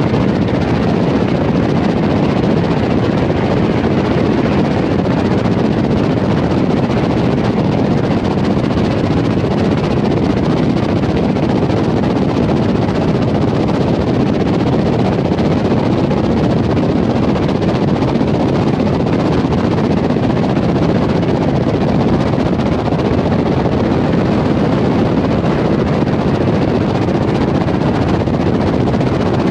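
Steady road and wind noise from a car driving at speed through a road tunnel, the tyre and air rush echoing off the tunnel walls.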